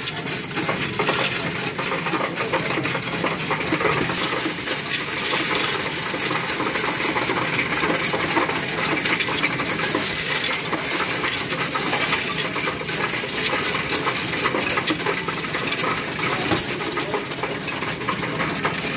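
Coinstar coin-counting machine taking in a load of mixed British coins. The coins make a dense, steady clatter and jingle as they slide across its perforated stainless steel tray and into the counter.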